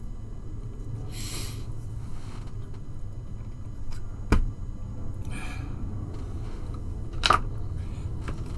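Small plastic model parts being handled and fitted at a workbench: a few sharp clicks and taps, with two short hissy puffs, over a steady low room hum.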